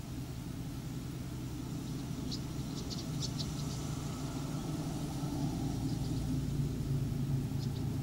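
A low, steady engine rumble that grows slightly louder, with a few short, high bird chirps about two to three seconds in and again near the end.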